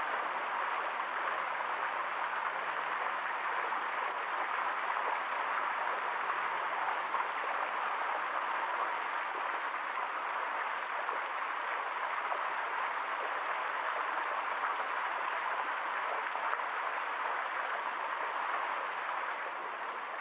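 Fountain water jets spraying and splashing into a shallow basin, a steady even splashing hiss.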